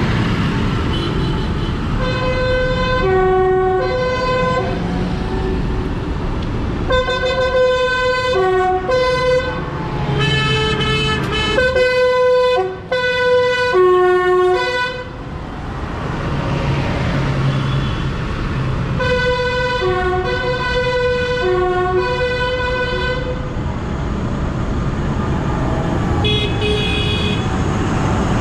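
Tractor horns tooting in runs of short notes at several pitches as a line of tractors drives past, over the steady running of their diesel engines.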